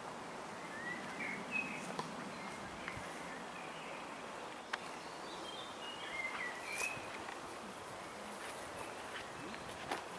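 Quiet woodland ambience: a steady background hiss with a few short bird chirps about a second in and again around six seconds in, and a few faint clicks.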